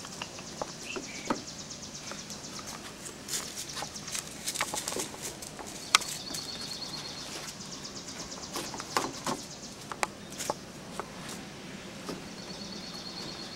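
Outdoor ambience: a high, rapid trill, evenly pulsed, heard three times a few seconds apart, with scattered sharp clicks and taps.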